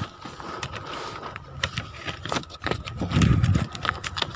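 Scattered knocks and rustling as cloths and a tarp are shifted in a wooden fishing boat's hold, with a faint steady high tone underneath and a louder low rumble about three seconds in.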